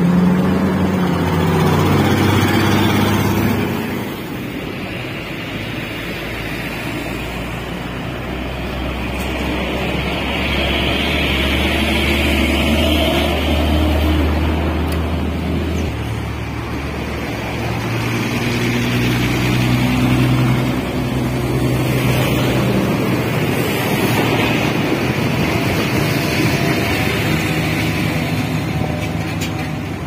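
Diesel engines running steadily with a low drone; the pitch and level shift a few times. The engines are the trucks at the paving job and the small single-cylinder diesel that drives the asphalt sprayer's pump.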